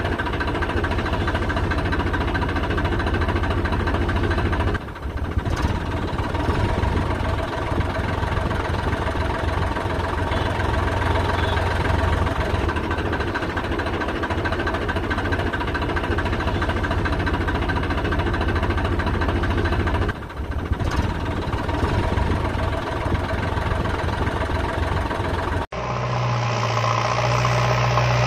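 Tractor engine running steadily at idle, with two brief dips. Near the end it cuts abruptly to a different engine sound with a deeper steady hum.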